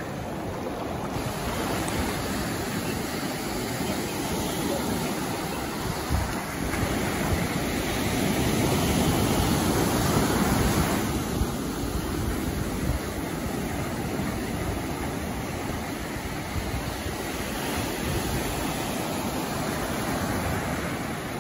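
Steady rushing noise of sea surf and wind on the microphone, swelling louder a little before the middle.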